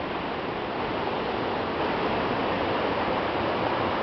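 Waterfall: a steady rush of falling water, growing a little louder about two seconds in.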